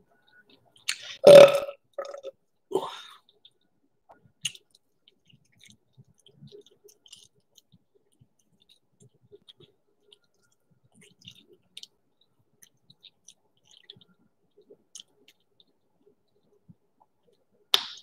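A woman burps loudly about a second in, followed by a shorter, weaker sound about a second later. After that come faint lip-smacking and small mouth clicks, with a sharper click near the end.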